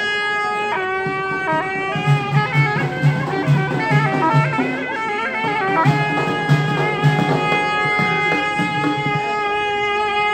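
Reed-pipe music: a shrill wind instrument plays a wavering melody over a held note, with a drum beating in quick strokes through the middle.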